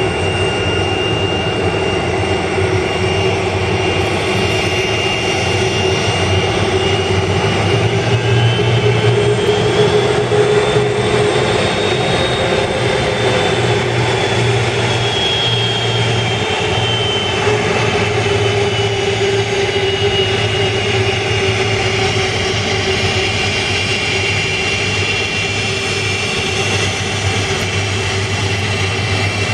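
Boeing 747-400 freighter's four turbofan engines running at taxi power: a steady jet roar with a high whine that drifts up in pitch and back down about midway as the aircraft rolls past.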